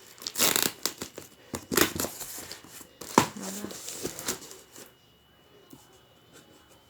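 Parcel packaging being torn open and crinkled by hand, in irregular bursts of rustling that stop about five seconds in.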